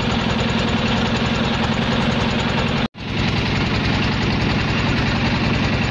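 Boat engine running steadily with an even, fast chugging beat, with a brief dropout about three seconds in.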